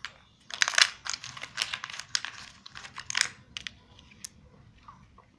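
Pattern blocks clicking and clattering as a hand picks through them and sets one down on a laminated sheet: quick runs of sharp taps, thinning out near the end.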